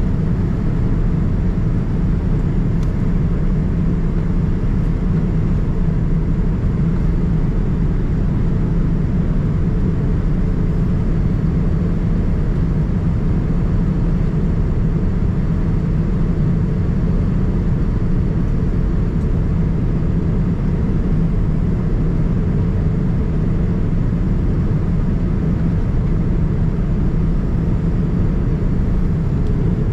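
Steady, unbroken cabin rumble of a Boeing 787-9 airliner, engine and airframe noise heard from inside the cabin at a window seat.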